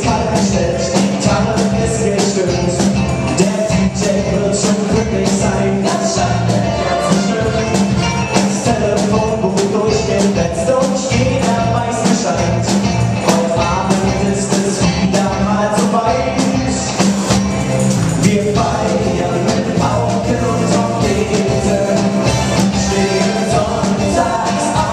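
Live rock band playing a carnival song at full volume: drums keeping a steady beat under electric guitar, bass guitar and keyboard, with a lead singer's voice over the top.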